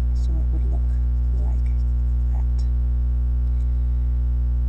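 Loud, steady electrical mains hum: a constant low buzz with a stack of evenly spaced overtones.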